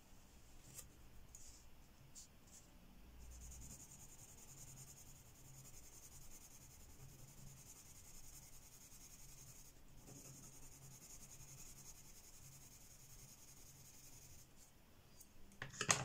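Faint, steady scratching of a Derwent Lightfast coloured pencil shading a swatch on paper, briefly pausing partway through. A few sharp clicks near the end.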